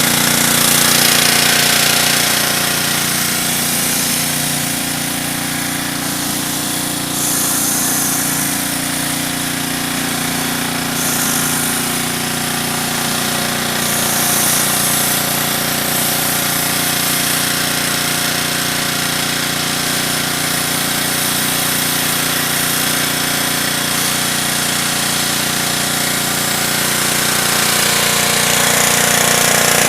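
Pressure washer running steadily with a constant rattling machine din, and a high hiss that swells and drops a few times.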